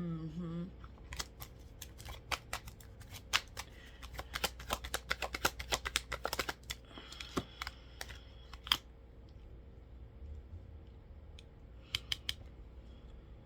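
Tarot cards being handled and shuffled: an irregular run of short, sharp clicks and snaps, densest in the middle, with a few more near the end.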